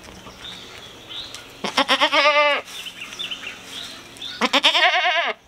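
Doe goat in labour bleating twice, two long wavering calls that drop in pitch at the end, as she pushes out a kid.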